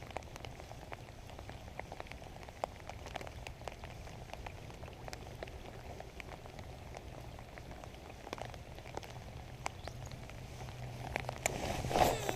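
Steady rain falling, with scattered drops ticking sharply close by, over a low steady hum. A louder rustle comes near the end.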